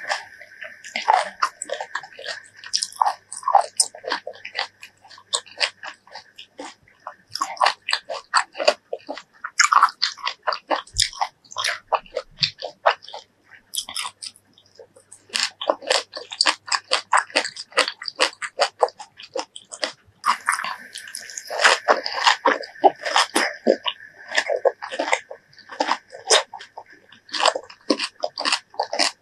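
Close-miked biting and chewing of juicy fresh fruit: many crisp crunches and wet mouth sounds, with a short lull about halfway through.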